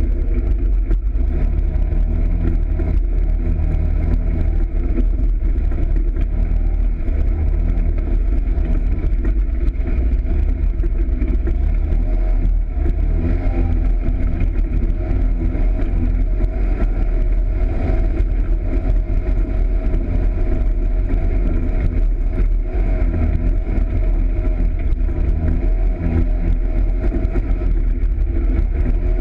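Polaris RZR side-by-side's engine running as it drives a rough dirt trail, its pitch rising and falling with the throttle over a heavy low rumble.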